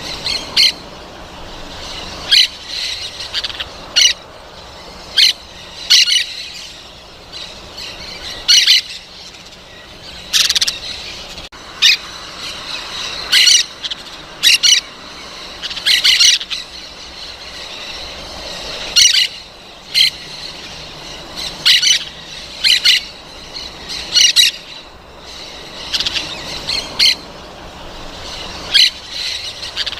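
Parrots squawking in short, sharp calls, one every second or two, throughout.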